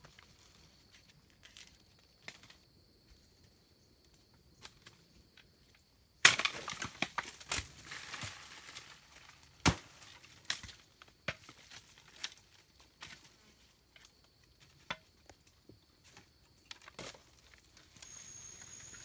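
Irregular crunching, cracking and snapping with scattered sharp clicks, thickest in a busy stretch starting about six seconds in, typical of plant material being broken, cut or handled by hand.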